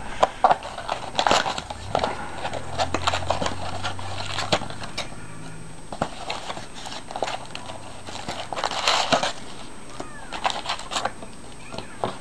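Crinkling, rustling and tearing of wrapping and cardboard as a box of trading cards is opened, in irregular crackly bursts with scattered sharp clicks over a low steady hum.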